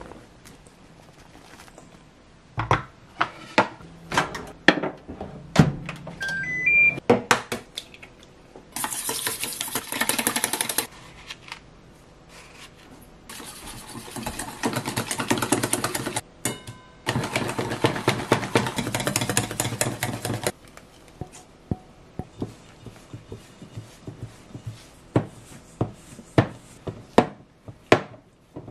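Kitchen prep sounds on stainless steel mixing bowls: knocks and clinks in the first few seconds, with a short rising run of electronic beeps. Then a wire whisk beats rapidly against a steel bowl in three long bursts in the middle. Near the end come scattered taps and scrapes of a spatula mashing dough in the bowl.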